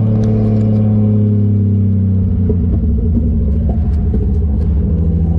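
Turbocharged 1JZ inline-six engine running at low revs with a low rumble, heard from inside the cabin; its pitch eases down a little about two seconds in, then holds steady.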